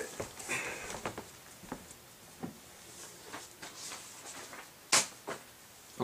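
Faint knocks, rustles and handling noises of a person getting up and fetching a stack of paper, with one sharp click about five seconds in.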